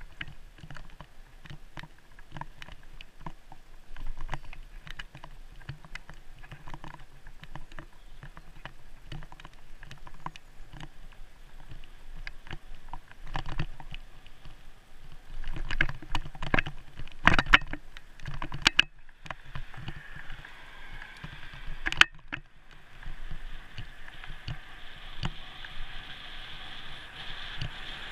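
A bicycle rides over rough tarmac with a steady run of small rattles and knocks from the bike and its handlebar-mounted action camera. Several louder knocks come about two thirds of the way through, and a steady hiss of wind and road noise builds in the last third.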